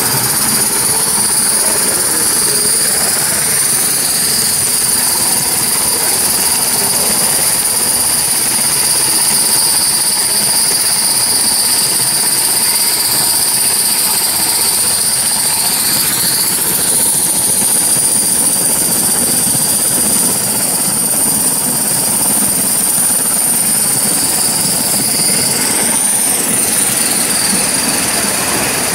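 Gauge 1 live-steam model of an LSWR Adams Radial tank locomotive running with its coaches: a steady hiss and rolling noise with two high whines that waver and dip twice, about halfway through and near the end.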